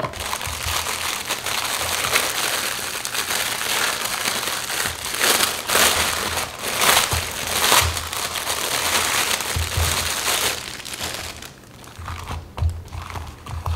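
Clear plastic wrap crinkling and crackling as it is pulled off a silicone adhesive bra. The crinkling dies down to a few crackles near the end.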